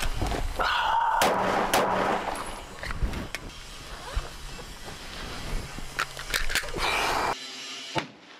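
A pistol being drawn from a zippered fanny pack: a zipper rasp and rustling, then several sharp clicks and knocks of handling. The sound cuts off to near silence near the end.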